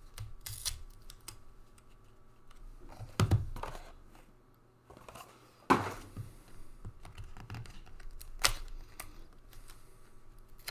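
Trading cards and a cardboard hanger box being handled on a tabletop: light rustling and scraping, with four sharp knocks and taps. The loudest taps come about three and five and a half seconds in.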